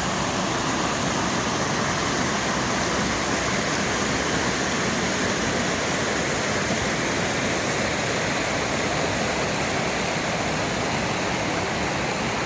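Small waterfall and stream rushing over rocks in a steady, unbroken wash of water noise.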